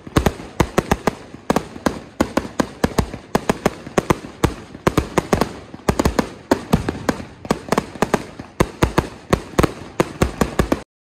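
Fireworks going off: an irregular run of sharp cracks and bangs, several a second, that stops abruptly near the end.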